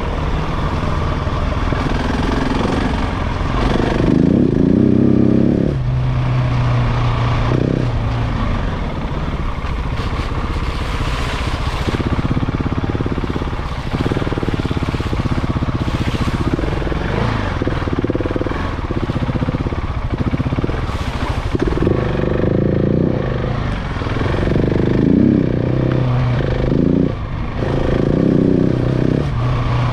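KTM 690 Enduro's single-cylinder engine running under way, opened up in loud spells of a few seconds, its pitch climbing and falling, and easing off between them.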